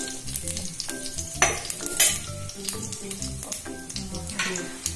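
Mustard seeds and urad dal frying in hot sesame oil in a frying pan for a tempering: a steady sizzle with crackles, and two sharp pops about one and a half and two seconds in.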